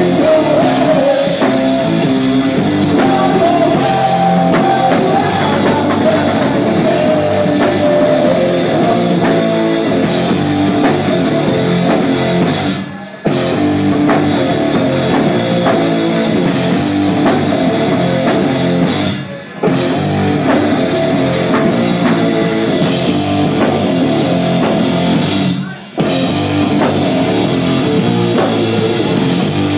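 Live rock band playing loud, with electric guitars and a drum kit. The whole band stops dead for a split second three times, about 13, 19 and 26 seconds in, then comes straight back in.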